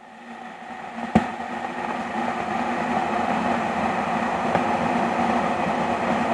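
A steady vehicle rumble that swells up over the first two seconds and then holds even, with one sharp click about a second in.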